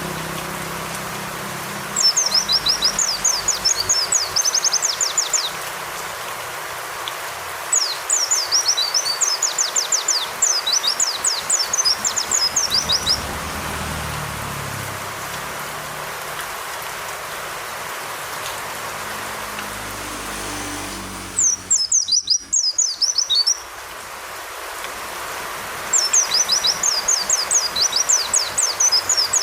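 White-eye (pleci) song in four bouts of rapid, high, chattering notes, each note falling in pitch, separated by pauses, over a steady hiss of falling rain.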